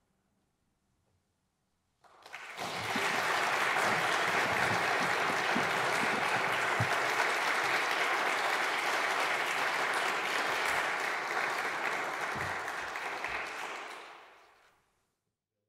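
Audience applauding: a brief hush, then clapping that starts about two seconds in, builds quickly, holds steady, and fades out shortly before the end.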